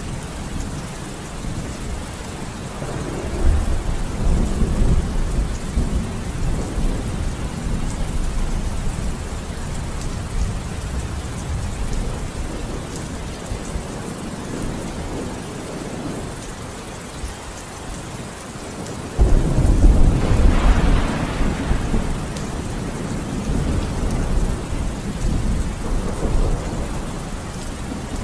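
Rain falling steadily with rolling thunder. A low rumble swells about three seconds in, and a sudden loud thunderclap breaks about nineteen seconds in, then rumbles away over several seconds.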